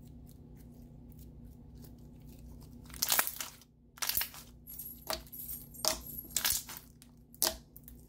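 Thick, glossy clear slime with foam beads being stretched, pressed and pulled apart by hand, making a series of sharp pops and crackles starting about three seconds in, roughly one a second.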